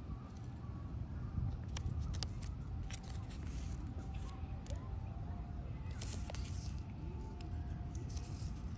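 Outdoor ambience: a steady low rumble with faint distant voices and scattered short crackling rustles, heaviest about three seconds in and again around six seconds.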